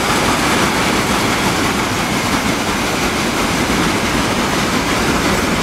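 Freight train of covered hopper wagons rolling past, a steady loud noise of wheels on rails.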